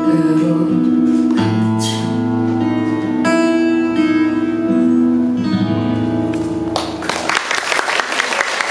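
The end of a live song: a singer's held final notes over instrumental accompaniment. The music stops about seven seconds in and audience applause takes over.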